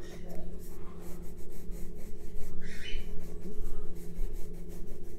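Pencil scratching on paper in quick, repeated sketching strokes, over a steady low hum.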